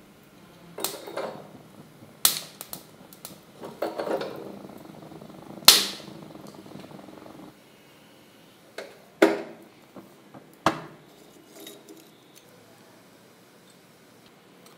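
Charcoal being handled and heated on a lit gas stove burner: a series of sharp clicks and knocks a few seconds apart, the loudest about six seconds in, over a low steady hiss that stops about halfway through.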